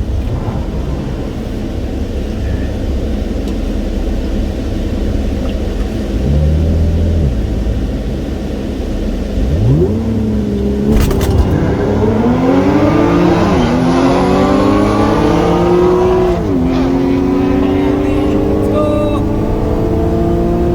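Supercharged 3.0-litre V6 of an Audi S5 idling at the drag-strip start line, with a brief rev about six seconds in. It then launches and accelerates at full throttle, the engine note climbing, dropping at each of three upshifts, and climbing again.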